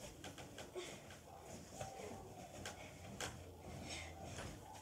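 Faint scattered clicks and knocks of a child moving about and bouncing on a bed.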